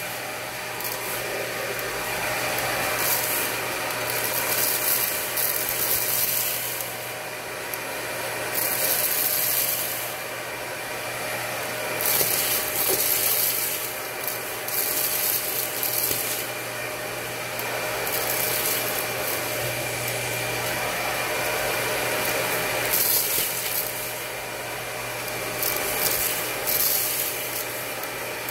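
Dyson Ball Multifloor vacuum running steadily through its hose-tool nozzle, which is rubbed over carpet and sucks up spilled rice. The steady motor whine is joined several times by louder stretches of hiss as the nozzle pulls in the debris.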